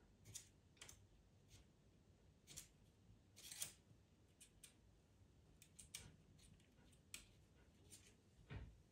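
Pastel pencil scratching on sanded pastel mat paper in quick, short, irregular strokes, faint and close, with a soft thump near the end.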